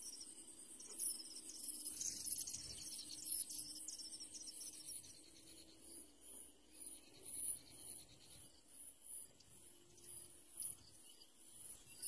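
Faint high-pitched insect chirping, pulsing about twice a second, with scattered higher chirps in the first half and a faint low hum underneath.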